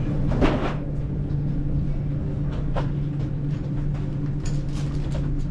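Hotel elevator running: a steady low mechanical hum with a few light clicks and knocks over it.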